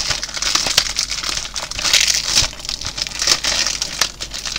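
Plastic shrink-wrap crinkling and rustling in uneven surges, with small clicks, as it is picked at and peeled off a Blu-ray case.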